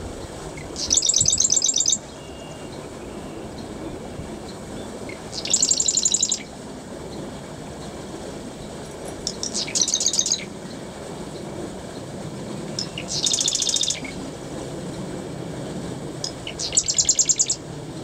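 Marsh wren singing: five short, rapid rattling trills, each about a second long, repeated every four seconds or so.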